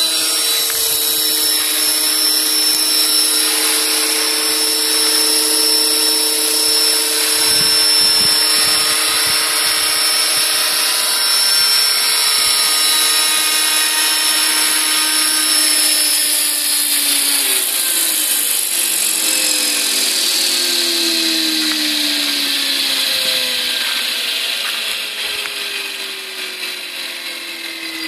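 Radio-controlled scale Hughes 500 helicopter's motor and rotor whining steadily at a high pitch, then winding down from about two-thirds of the way through, the pitch sliding lower and the sound fading as the rotor slows.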